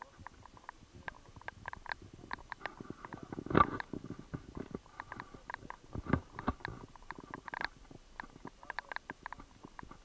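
Footsteps of hikers walking on an asphalt road with heavy backpacks, with quick light clicks and rattles of gear several times a second. Two louder dull bumps on the microphone, about three and a half and six seconds in.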